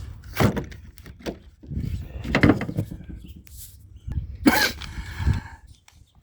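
Irregular knocks, clicks and rustling from objects being handled, about five sharp strokes spaced unevenly.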